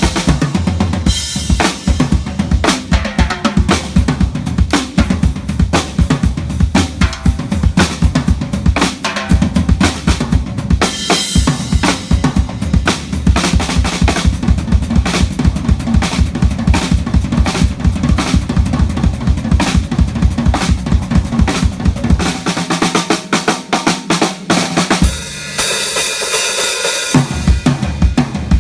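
Live band playing at a sound check: a drum kit driving a fast beat of kick and snare hits over low bass notes. Near the end the low end drops out for about two seconds under a bright wash, then the full beat comes back.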